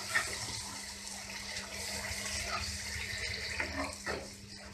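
Fried onion-tomato masala sizzling and bubbling in a hot kadhai just after a little water has gone in, with a steady hiss and a steel spoon stirring, giving a few short scrapes and taps against the pan near the start and again near the end.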